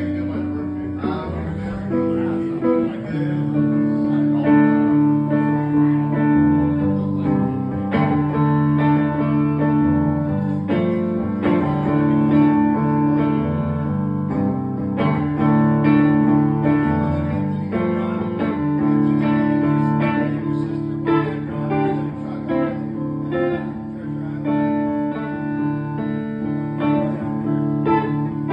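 Archtop hollow-body electric guitar played solo through an amplifier: a continuous run of picked chords and single notes.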